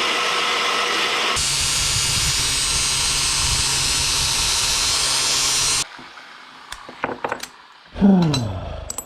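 Power tool running and cutting a radius into a steel hinge part; its note gets heavier about a second in as it bites into the metal. It stops near the six-second mark, followed by a few sharp clicks of handling and, near the end, a short burst that winds down in pitch like a motor spinning down.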